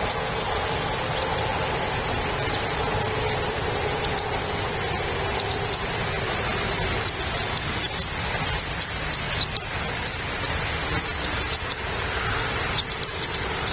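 Outdoor ambience from a bald eagle nest camera's microphone: a steady rushing noise, with many short high chirps in the second half.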